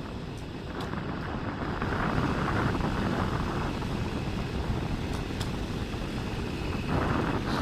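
Wind buffeting the microphone during a fast ride along an asphalt road: a steady rushing noise that swells a little about two seconds in.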